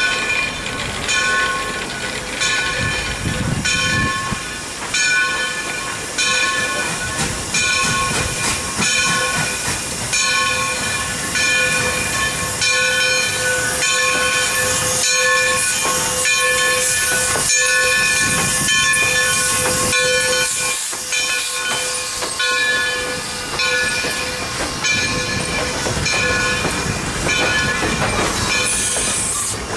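Black River & Western No. 60 steam locomotive approaching and passing, steam hissing, with a bell ringing about once a second; its passenger cars roll by near the end.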